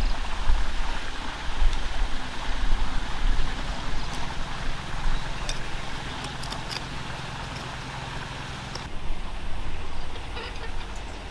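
A steady low engine hum from an unseen motor, with a few light clicks and scrapes of a small hand tool working dry clay soil.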